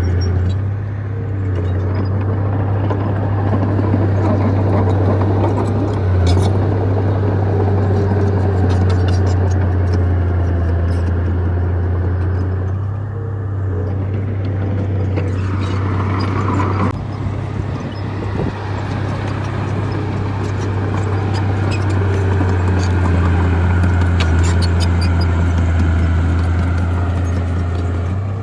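Bulldozer's diesel engine running steadily under load, with a deep hum and the scattered clank of steel tracks. A little past halfway a higher whine rises briefly and cuts off suddenly.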